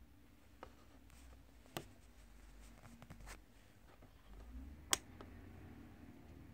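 A few sharp plastic clicks from the electric multi cooker's rocker power switch being pressed, the loudest about five seconds in, with no hum from the cooker in between: it has no power.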